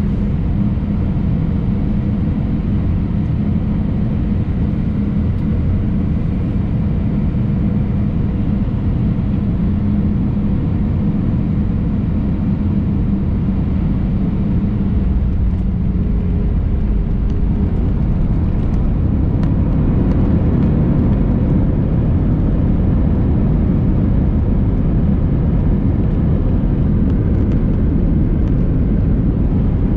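Airbus A319 engine and airflow noise heard inside the passenger cabin: a loud, steady rush with a low hum that fades out about halfway through, growing slightly louder about two-thirds of the way in.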